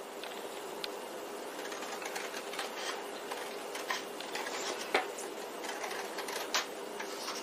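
Scissors snipping through a photo print, a run of short, irregular cuts trimming a strip off its bottom edge.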